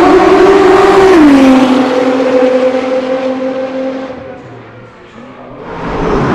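Race car at full throttle passing by on a circuit, its engine note dropping in pitch as it goes past about a second in, then fading away. Another car's engine builds up near the end.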